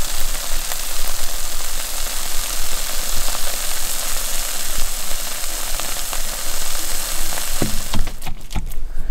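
Steady sizzling hiss with a few faint crackles from a Dutch oven baking in campfire coals. A few sharp knocks come near the end.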